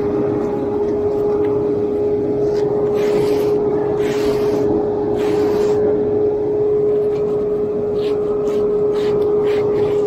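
An engine running steadily with a constant droning pitch, with a few scraping swishes of a hand float being drawn over wet concrete.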